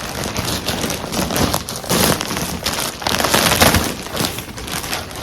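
Plastic packaging crinkling and rustling as it is handled, loud and irregular, swelling and easing several times.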